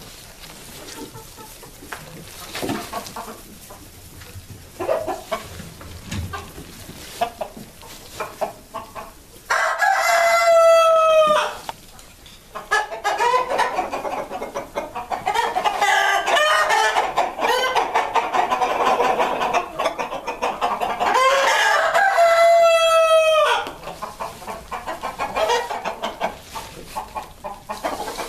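A flock of New Hampshire chickens clucking, with a rooster crowing twice, about ten seconds apart: once about ten seconds in and again past the middle. Between the two crows the clucking of many birds grows loud and dense.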